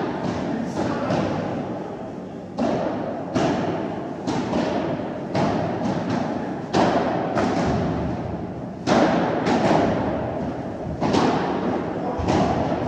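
Padel ball struck back and forth in a rally: irregular sharp pops of the ball off solid padel rackets, bounces on the court and knocks off the glass and walls, about one to two a second, each echoing in a large indoor hall.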